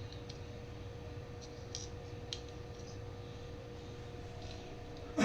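Faint, scattered clicks and ticks from soldering work on a copper-foiled stained-glass piece, over a steady low hum.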